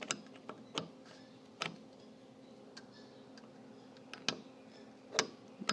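Light, irregularly spaced clicks and ticks, about nine of them, from a door swinging slowly shut under its hydraulic door closer. The loudest click comes near the end.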